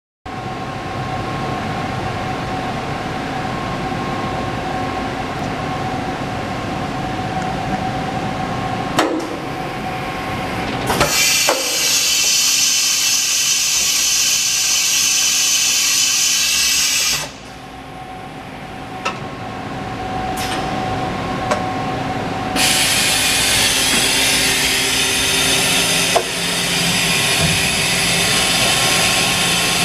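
Fadal EMC CNC vertical machining center running under power: a steady machine hum with a thin whine, two clunks, then a loud, high hissing whir. The whir drops away for a few seconds midway and comes back.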